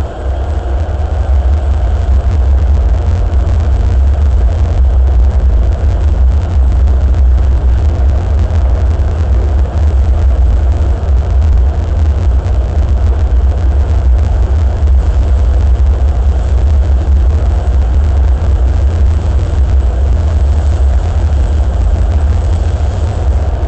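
Beijing subway train running through a tunnel, heard from inside the car: a loud, steady low rumble of wheels on rail and traction motors, which swells over the first second or two and then holds.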